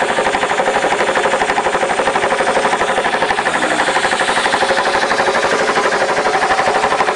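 Husky belt-driven air compressor running, its electric motor and piston pump chugging in a fast, steady pulse with the tank at about 100 psi. It keeps running instead of cutting out at the pressure switch, which the owner thinks might be down to a pinhole leak in the rusted tank.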